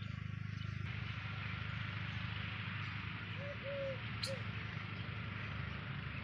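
Outdoor background noise: a steady low hum under an even hiss, with three short arching calls about three and a half seconds in, followed by a single sharp click.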